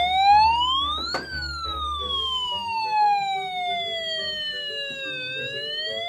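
Wailing siren, its pitch rising to a peak about a second in, then falling slowly for about four seconds and starting to rise again near the end.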